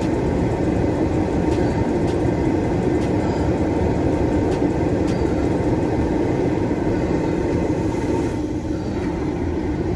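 Steady rushing of a car's heater blower turned up high inside the cabin, over the idling engine, as the car warms up in freezing weather. It eases slightly near the end.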